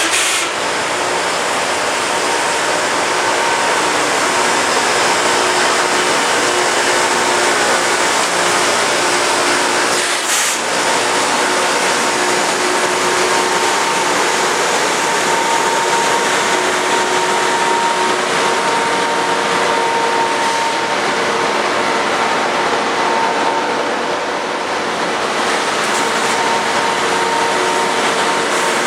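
Loram rail grinder at work: a steady hiss of grinding stones on the rail, with a hum of the train's machinery under it.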